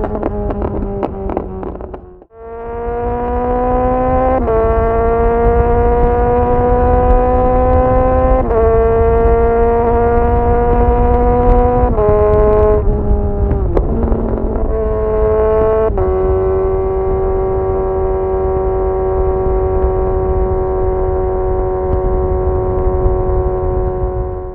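Kawasaki Z900 inline-four through a full titanium SC-Project exhaust, loud, pulling gently in gear with its pitch climbing slowly. Quick gear changes come about 4, 8 and 12 seconds in, then the revs shift around briefly. From about 16 seconds the engine holds a steady cruise. The sound drops out suddenly for a moment about two seconds in.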